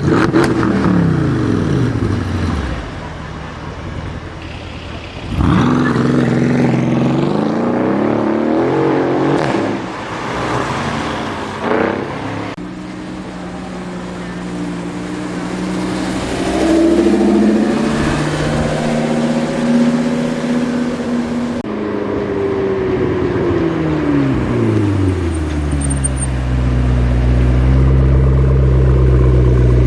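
Sports car engines in street traffic revving and accelerating, their pitch rising sharply about five seconds in and sweeping up and down after that, with a deep steady engine note near the end.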